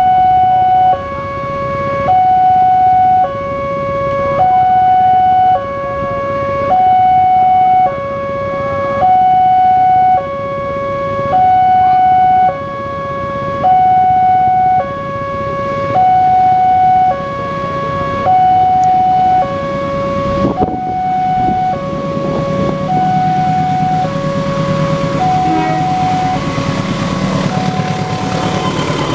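Railway level-crossing alarm sounding its two-tone electronic warning, a high note and a low note alternating about once a second, signalling an approaching train. After about twenty seconds the alarm grows quieter and the low rumble of the approaching diesel locomotive rises beneath it.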